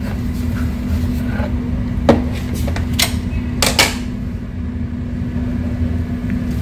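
A clear plastic chocolate-bar mould knocked and clicked against a marble counter while the bars are unmoulded: four sharp knocks between about two and four seconds in, the last two close together. A steady low hum runs underneath.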